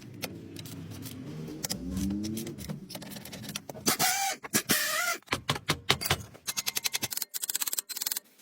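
Hand-tool work on rusty brake parts. A low scraping and grinding comes first, then a brief squeaky scrape about four seconds in. After that comes a fast run of even, sharp clicks lasting a couple of seconds.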